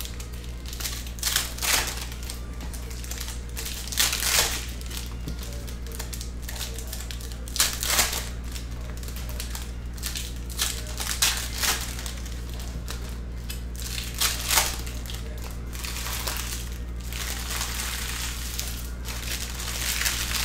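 Packaging of a sports-card box crinkling and tearing as it is ripped open, in short bouts every few seconds. A steady low hum runs underneath.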